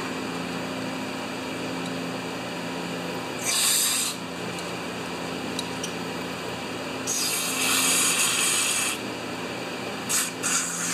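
Aerosol choke-and-carb cleaner sprayed through its red extension straw into the passages of a small-engine carburetor to flush them clear. A short hiss comes about three and a half seconds in, then a longer hiss of about two seconds, then a few brief spurts near the end.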